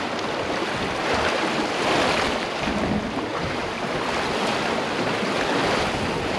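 Sea swell surging and washing against a rocky shoreline, a steady rush of surf that swells a little about two seconds in.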